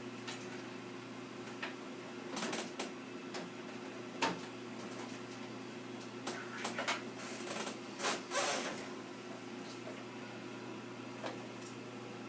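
Scattered clicks and rustles of drive cables and plastic connectors being handled and plugged in inside a desktop computer case, over a steady low hum.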